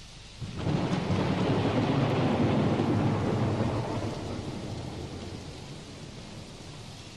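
Thunder over steady rain: a sudden loud rumble breaks in about half a second in and slowly dies away over the next several seconds.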